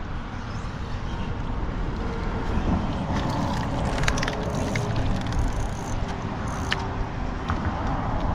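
Wind buffeting the microphone as a steady low rumble, with a few light clicks and rustles of handled gear and clothing in the middle.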